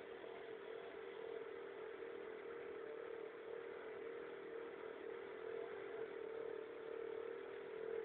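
Kymco scooter engine idling, heard as a steady, muffled drone that does not change.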